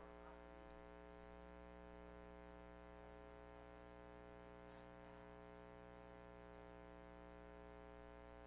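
Near silence: a steady, constant electrical hum made of many fixed tones.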